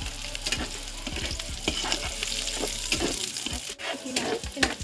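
Pork pieces, onion and garlic sizzling in hot oil in a wok, with a spatula scraping and clicking against the pan as they are stir-fried.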